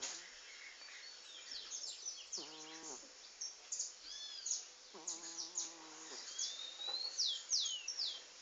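Domestic cat snoring in her sleep: two low buzzy snores a couple of seconds apart, one per breath. Birds chirp and whistle in the background throughout.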